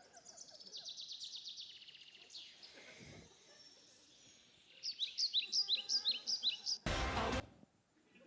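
Bird-like chirping: a run of rapid, evenly repeated high chirps, a fainter lull, then another quick run of chirps, cut by a short, loud burst of noise near the end.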